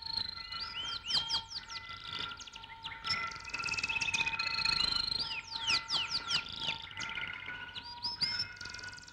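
A soundtrack chorus of birdsong: many quick chirps, trills and falling whistles, over a few steady held tones.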